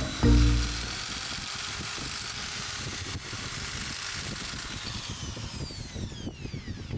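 Two-stroke engine of an Echo 260 brush cutter running at high speed, then winding down as the revs fall away over the last couple of seconds.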